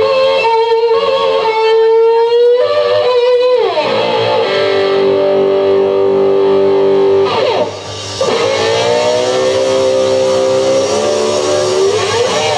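Electric lap steel guitar played solo with a slide bar: long sustained notes that glide smoothly in pitch, sliding down about four seconds in, dipping and climbing back just before eight seconds, and sliding down again near the end.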